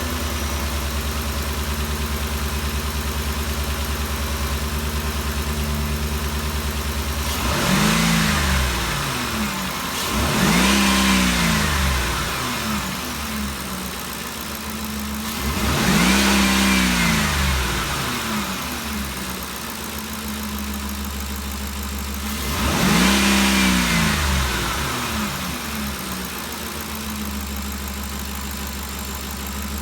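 2013 Ford Expedition's 5.4-litre V8 idling steadily, then revved four times, each rev rising and falling in pitch over about two seconds. It runs without the valve-train ticking it had before the repair.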